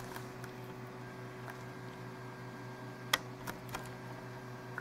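Quiet room tone: a steady electrical hum with light hiss, broken by a few faint clicks, the sharpest about three seconds in.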